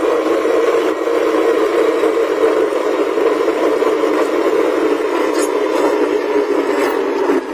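Wheeled excavator's diesel engine running steadily as the machine travels, heard from the cab as a thin, even drone with little bass.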